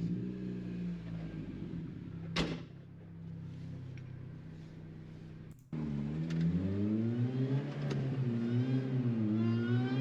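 Car engine running at a steady idle, then after a sudden cut a few seconds in, running louder with its pitch rising and falling as it is revved and driven.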